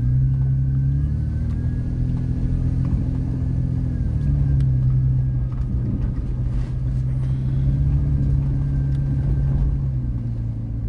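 Car engine running steadily, heard from inside the cabin, over the low rumble of tyres on a dirt road. The engine note shifts up about a second in and again about four seconds in, then eases slightly lower.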